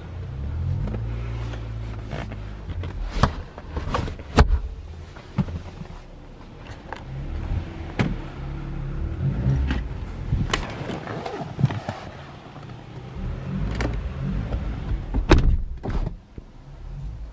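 Rear seatback of an Audi RS5 Cabriolet being handled inside the cabin: sharp clicks and knocks as it is raised and latched, over a low rumble. Near the end comes another loud click around the front door's interior handle.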